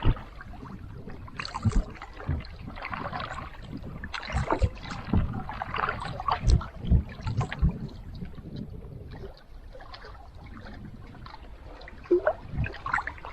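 Paddling a pack canoe: the paddle blade dips and splashes in irregular strokes, with sharp knocks among them, in two spells of strokes.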